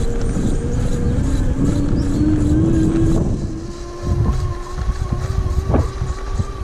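48V e-bike electric motor whining under throttle: its pitch rises over the first few seconds as the bike gathers speed, then holds steady. Heavy rumble of wind and tyres runs underneath, with a few sharp knocks in the second half.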